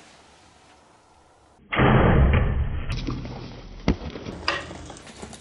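Compound bow being shot: a sudden loud thump of the release a little under two seconds in, fading over about a second, followed by a few sharp knocks as the impala bolts.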